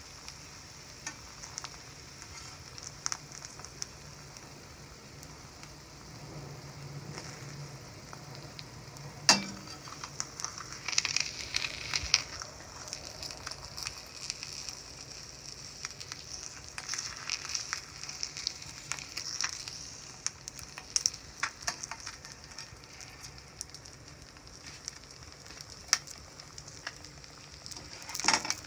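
An egg frying in a stainless steel pan: steady, high sizzling with many small crackling pops, and one sharp click about a third of the way in.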